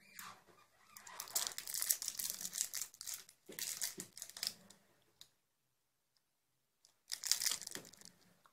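Crinkly gold wrapper of a hard candy being unwrapped by hand: a long spell of crackling, a pause, then a shorter spell near the end.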